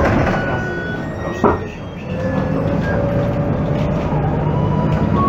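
Volvo 7000A articulated city bus running on its Volvo D7C275 diesel engine and ZF 5HP592 automatic gearbox, with the gearbox whine audible. A sharp knock comes about a second and a half in, after which the whine rises slowly in pitch as the bus gathers speed.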